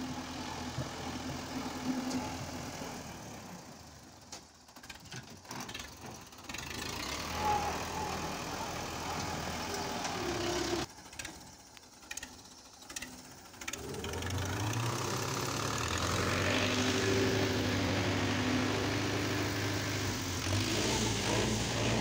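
Tractor diesel engine running as a tractor-mounted front loader works, loading earth into a trolley; the engine sound turns louder and steady about two-thirds of the way through.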